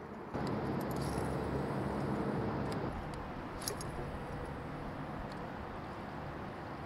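Electric kayak motor running with a steady hum that starts about a third of a second in, with a few light metallic clicks and jingles over it.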